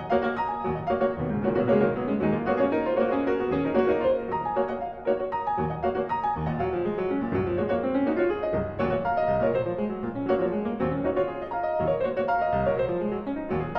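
Classical piano music played in quick, flowing runs of notes, laid over the footage as a soundtrack.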